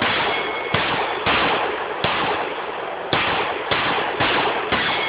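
A string of 9mm pistol shots fired at steel targets: seven shots at uneven spacing of about half a second to a second, each with a long echoing tail. A faint high ring follows some of them, as the steel plates are hit.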